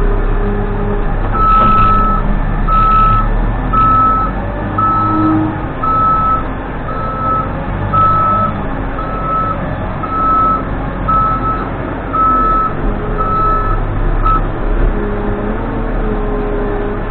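Case 580N backhoe loader's diesel engine running while its reverse alarm beeps about once a second, a single steady-pitched beep, as the machine backs up; the beeping stops near the end while the engine keeps running.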